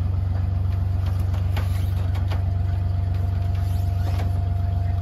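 An engine idling steadily, with a few light knocks and a thin steady whine that comes in about halfway through.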